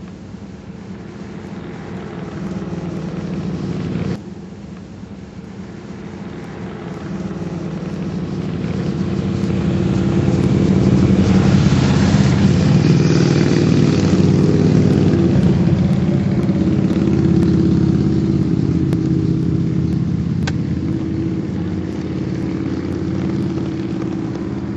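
2007 Buell XB12STT Lightning SuperTT's air-cooled 1203 cc V-twin engine running. The sound drops abruptly about four seconds in, then grows steadily louder over several seconds and holds.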